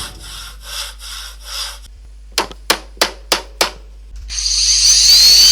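Edited intro sound effects: a few rhythmic scraping strokes, about two a second, then five sharp knocks in quick succession, then a rising whoosh with whistling glides that cuts off abruptly.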